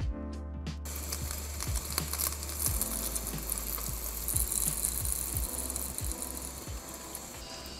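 Fish deep-frying in hot oil in a pan: a dense sizzle full of small crackles and pops, easing a little near the end. Background music plays for the first second or so.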